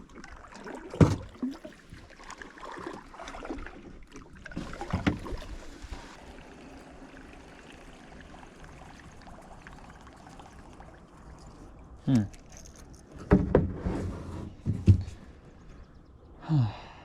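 Gear moving about on a kayak: a few sharp knocks against the hull, one about a second in, one about five seconds in and two near the end, with low rustling and water noise between and a quieter stretch in the middle. A few short creaking glides come near the end.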